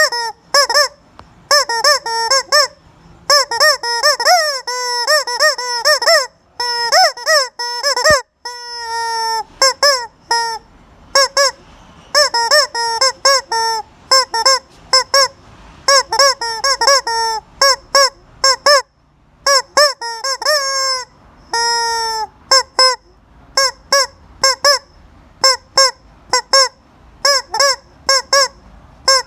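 A noise-making chicken clucking in rapid runs of short, honking calls, broken by brief pauses, with one longer wavering call about eight seconds in.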